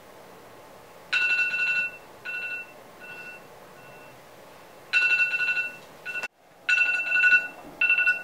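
Mobile phone alarm going off: a repeating phrase of electronic beeps, one long beep followed by shorter ones that get fainter, starting about a second in. It cuts out for a moment a little after six seconds, then carries on.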